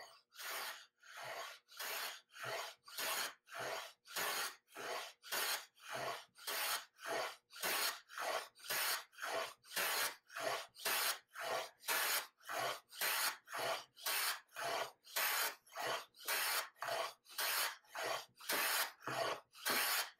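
Stanley Bailey hand plane taking a shallow bevel cut along a board's edge in short, quick, regular strokes, about two a second, each a brief hiss of the blade slicing a shaving.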